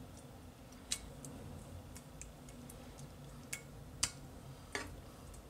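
Metal serving spoon clinking against a glass casserole dish and a skillet while meat sauce is scooped and spread, a handful of sharp, unevenly spaced taps, the loudest about four seconds in.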